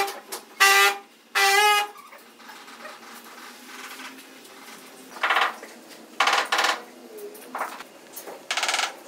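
Cloth rubbing on wet, glossy ceramic floor tiles while they are wiped clean, giving a series of short, high squeaks: several close together at the start and more in the second half.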